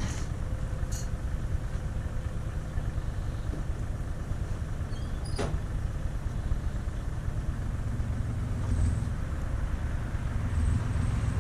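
Backhoe's diesel engine running steadily as the machine pushes against the corner of the house, the rumble swelling twice in the second half as it works harder. A few short clicks sound over it.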